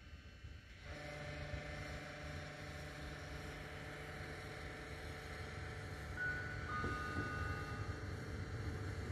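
Trenord ALe 582 electric multiple unit approaching, its electrical equipment giving a steady pitched hum that slowly grows louder. Two faint high squeals come in a little past the middle.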